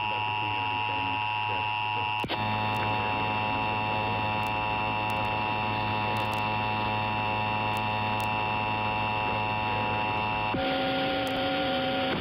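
Emergency Alert System attention signal: a steady, unwavering two-tone electronic tone from the station's EAS encoder, starting about two seconds in and held about eight seconds, marking a required test. Before it a different steady electronic tone sounds, and near the end a lower steady hum takes over.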